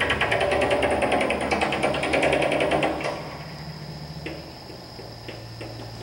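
Chipping hammer knocking dried concrete off a concrete mixer truck's drum: a fast, even rattle of many blows a second that stops about three seconds in, followed by a few single knocks.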